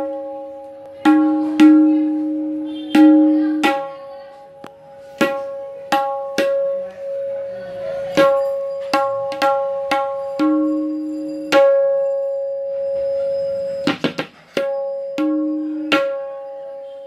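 A tabla dayan (right-hand treble drum) struck by hand in slow, separate strokes, each ringing out with a clear steady pitch that sustains for a second or more; some strokes also bring out a lower note, and there is a quick flurry of strokes about 14 seconds in.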